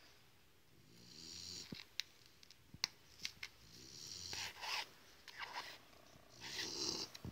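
Beading thread pulled through a paper pattern and its backing with a rasping, zipper-like swish, about three times, between a few sharp clicks of the needle being pushed through with a metal thimble.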